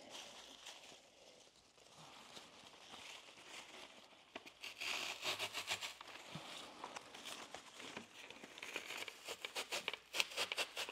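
Leaves of foliage stems rustling and crinkling as they are handled and pushed through chicken wire into a block of dry floral foam. The sound is a faint crackly rustle with bursts of small clicks, busiest about halfway through and again near the end.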